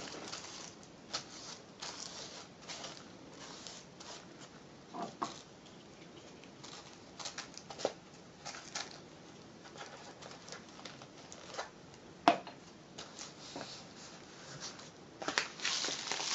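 Paper rustling and small taps and clicks as paper is glued onto a cardboard rain stick, with one sharp knock about three quarters of the way through. Near the end the tube, filled with rice, is lifted and tipped, and the rice starts to run down inside it with a steady hiss.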